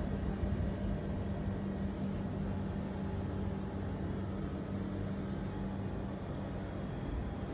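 Steady low hum over a constant hiss of background noise, with no distinct events.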